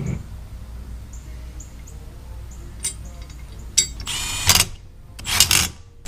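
Milwaukee cordless power driver running bolts into a lift pump's steel mounting bracket, in short whirring bursts about four and five seconds in.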